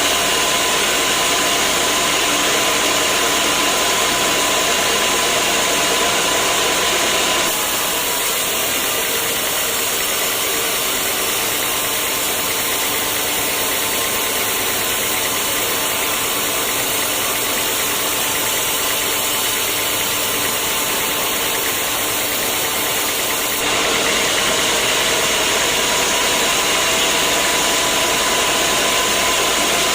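Sawmill machinery running steadily, a loud mechanical hum with a few steady tones over noise. The sound shifts abruptly to a somewhat quieter, different hum about a quarter of the way in and shifts back near three-quarters of the way through.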